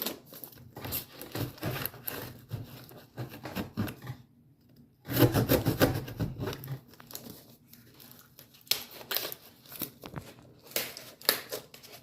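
A shipping package being opened by hand: irregular tearing, rubbing and crinkling of the packaging, with a louder rough rip about five seconds in.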